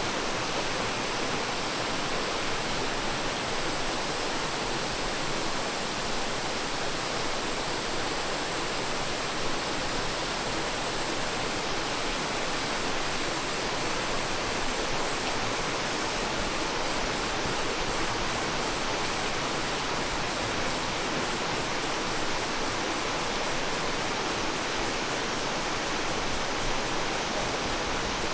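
Waterfall water falling and rushing steadily, an even, unbroken wash of noise.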